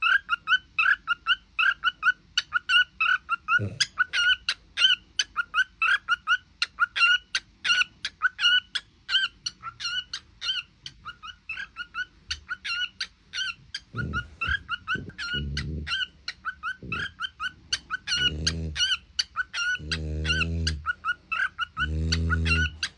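A dog and a cockatiel calling together: a steady run of short, high-pitched chirps, about three a second. In the last nine seconds several longer, deeper calls join in, the loudest near the end.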